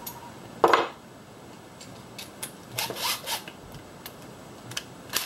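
Handling noise from tools and parts in a car's engine bay: a sharp scrape under a second in, then short rubbing and rustling and a few light clicks.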